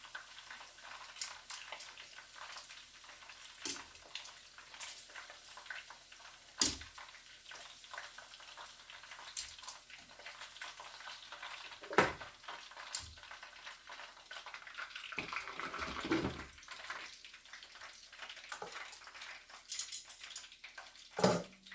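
Chicken wings frying in hot oil in a pan: a steady faint sizzle with crackling clicks, and now and then a knock of metal cookware, the loudest about halfway through.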